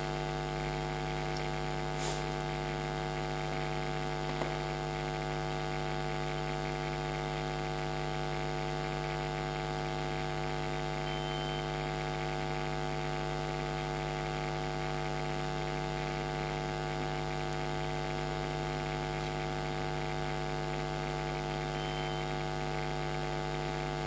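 Steady electrical mains hum, a buzz with a stack of evenly spaced overtones that holds unchanged throughout. Two faint clicks come about two and four seconds in.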